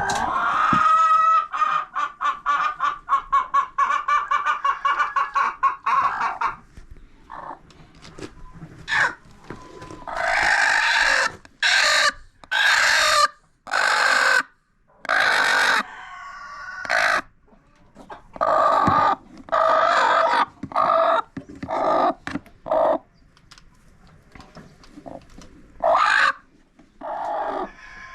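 Chickens calling: a fast run of clucks for the first few seconds, then a string of loud drawn-out calls.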